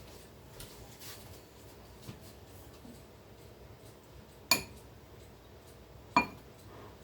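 Two sharp clinks of a metal utensil striking a mixing bowl, about a second and a half apart, each with a short ring, amid faint scraping and handling.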